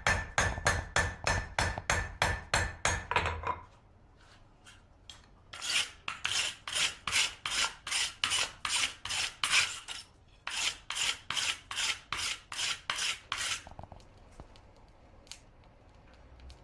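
Blacksmith's hammer striking metal on an anvil about three times a second with a ringing tone, stopping after about three and a half seconds. Then a file rasping across metal in two runs of quick back-and-forth strokes, about three strokes a second.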